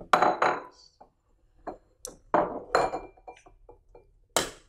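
Sharp clinks and knocks of crockery and eggs against a stainless steel mixing bowl, some leaving a brief metallic ring: a small bowl set down, then eggs tapped on the bowl's rim to crack them. The loudest knocks come in pairs, one pair just after the start and one in the middle, with a single strong one near the end.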